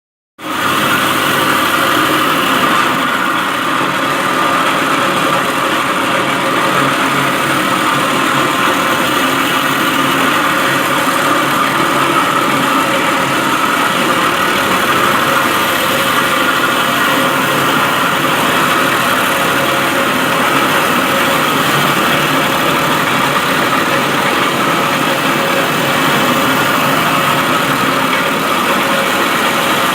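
Concrete floor grinder with its vacuum attached, running steadily as it grinds a concrete floor.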